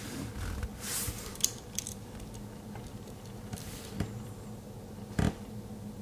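Victorinox Swiss Army knife being handled. Its tools scrape and click against the red scales and backsprings, with a louder, sharper click about five seconds in.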